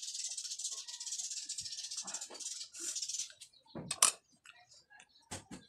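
A high, even hiss that stops about three seconds in, then a sharp clink about four seconds in and a smaller one near the end as a metal spoon knocks the ceramic dip bowl.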